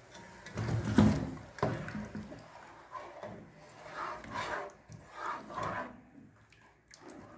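Spatula stirring and scraping coconut-milk curry in a non-stick pot, with liquid sloshing. There is a knock against the pot about a second in and softer irregular scrapes after it.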